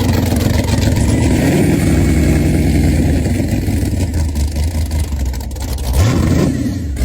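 A 700 hp sand rail engine idling while it warms up after a cold start in snow, with a brief rise and fall in revs about six seconds in.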